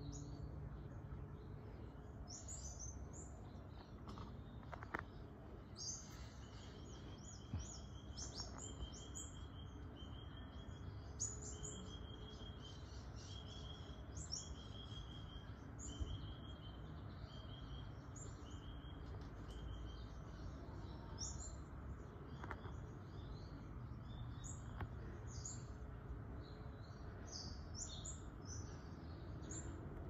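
GEC CS/78/Q 1400 mm ceiling fan running steadily with a low hum and the bearing noise it has always had, from worn bearings, under constant bird chirping. Through the middle one bird repeats a short call about once a second.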